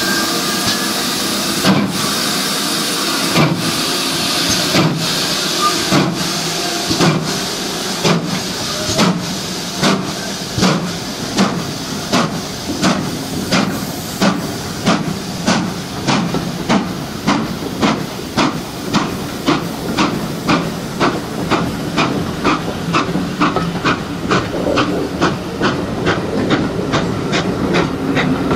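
GWR Hall-class 4-6-0 steam locomotive 'Raveningham Hall' pulling away with its train, its exhaust chuffs quickening from about one every second and a half to about two a second. A steady hiss of steam from the cylinder drains runs under the chuffs.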